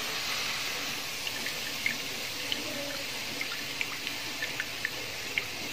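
Hot oil sizzling in a deep-frying pan, with scattered small pops and crackles, as fried sliced onions are lifted out with a wire skimmer and oil drips back into the pan.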